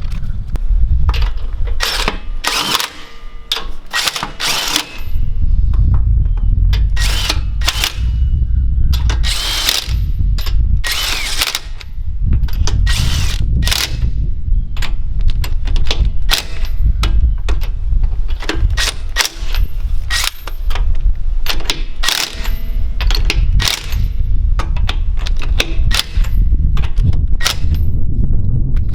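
Earthquake XT 20V cordless 1/2-inch impact wrench hammering on lug nuts in many short bursts, one after another, with a steady low rumble underneath.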